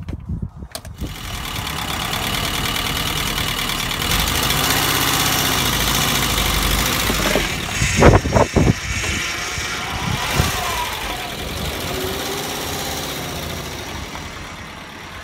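Volkswagen Vanagon Syncro's 2.1-litre Waterboxer flat-four idling after repair of its rusted, cracked exhaust header; still a noisy engine. A few louder irregular knocks come about eight seconds in, and the sound fades a little near the end.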